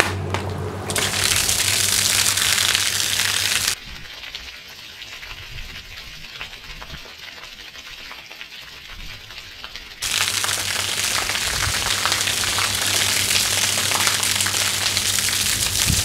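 Titan TTB583PMP submersible sump pump running with a low steady mains hum, pushing water up a flexible hose. About a second in, the jet from the hose starts splashing onto block paving as a dense hiss. Between about four and ten seconds in the hum drops out and the splashing is quieter, then both come back.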